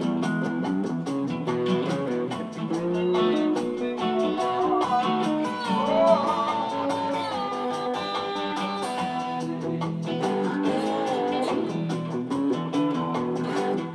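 Slow blues played on an acoustic guitar with an overdubbed slide guitar, the slide notes gliding up and down over the steady picked accompaniment.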